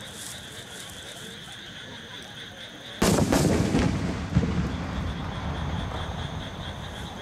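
Two aerial firework shells bursting: a sudden heavy boom about three seconds in, a second sharp bang about a second and a half later, then a long low rumble dying away.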